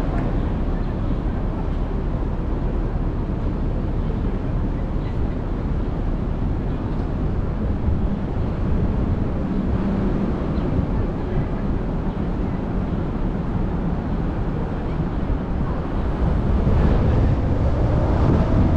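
Steady low rumble of a car and surrounding street traffic while stopped at a light, growing louder about sixteen seconds in as the car pulls away.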